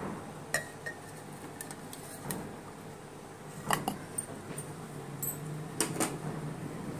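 A few light clinks and knocks from a bowl touching a stainless-steel mixer-grinder jar as thick mango pulp is poured in, over a faint steady hum. The first clink rings briefly.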